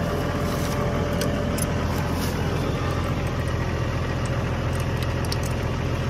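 Tractor engine idling close by, a steady low hum, with a few light metal clinks from the drawbar and hitch being handled.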